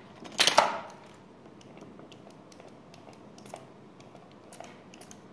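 Cleaning the phone's display: a short loud noisy burst about half a second in, then scattered light clicks and taps of handling.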